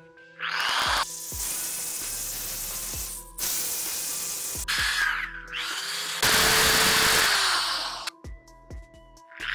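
Drill press with a 1/8-inch bit cutting into a car compressor's aluminium housing to open an exhaust port, in four bursts of cutting separated by short breaks, the last and loudest about two seconds long. Background music plays underneath.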